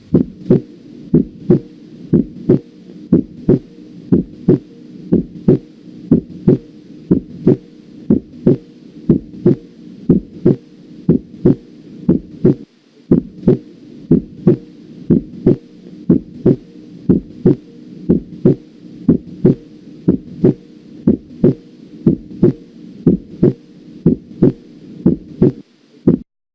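Normal heart sounds heard by auscultation: a regular lub-dub at roughly 90 beats a minute, each beat a louder knock and a softer one, the second sound (S2) being the closure of the aortic and pulmonary valves. A steady low hum lies underneath, and the beat cuts off shortly before the end.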